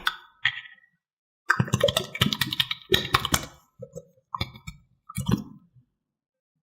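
Toys being handled: a quick series of clicks and taps, thickest in a busy run in the middle, with a few scattered clicks after it.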